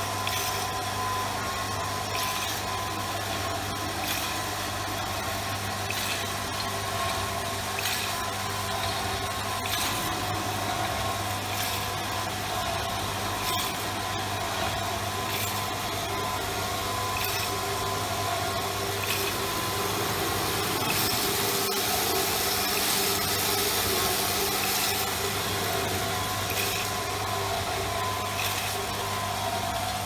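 Automatic rotary-disc vial crimp capping machine running: a steady motor hum with a regular clack about every two seconds as the vials index through. It grows a little louder and hissier about two-thirds of the way through.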